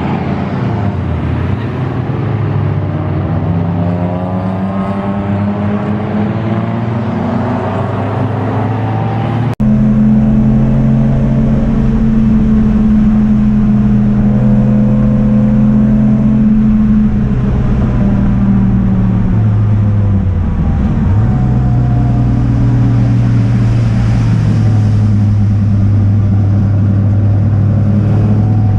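Race car engine running hard at full throttle, its pitch climbing through the gears and dropping briefly on the lifts. About ten seconds in the sound cuts abruptly to another stretch of the engine holding a high, steady pitch, which dips once near the end and climbs again.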